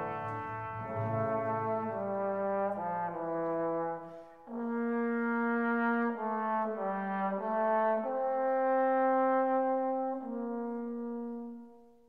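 Background music: a slow melody of long held notes that fades out near the end.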